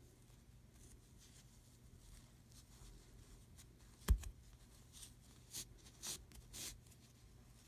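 Faint rustling and short swishes of wool yarn being drawn through crocheted stitches with a large yarn needle, weaving in the end. One sharp knock about four seconds in, then four quick swishes.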